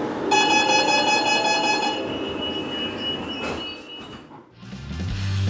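Renfe series 446 electric commuter train: running noise with a steady high multi-tone sound that starts suddenly just after the beginning and holds for about a second and a half before trailing off. The train sound then fades away, and music comes in near the end.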